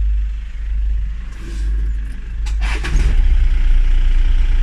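Jeep engine running with a steady low rumble, which grows louder and pulses from about three seconds in, just after a short rushing burst.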